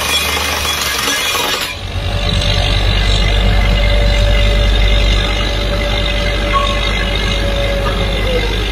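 Truck-mounted down-the-hole (DTH) drilling rig: the hammer's hissing, rattling compressed-air flush cuts off abruptly under two seconds in. After that the rig's engine and high-pressure air compressor keep running in a steady low drone.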